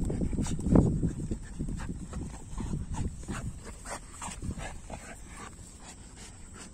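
Two dogs in a tug-of-war over a chew toy gripped in their jaws: dog noises and scuffling in short, irregular strokes, loudest about a second in and growing fainter toward the end.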